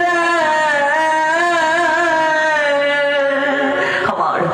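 Devotional kirtan singing: one voice holds a long drawn-out note with a wavering vibrato, breaking off about four seconds in.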